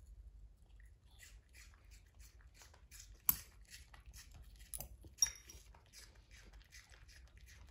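A Yorkshire terrier chewing a piece of fruit, with quick, irregular small clicks and smacks of its mouth. Twice a sharper clink of a metal fork against the bowl, about three and five seconds in, is the loudest sound.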